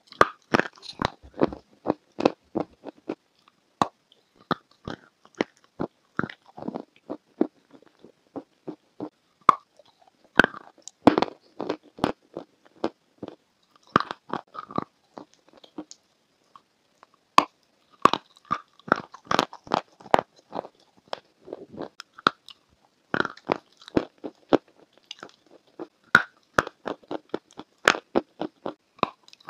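A person biting into and crunching a dry, crumbly grey block, then chewing it: clusters of sharp, crisp crackles with short pauses between bites.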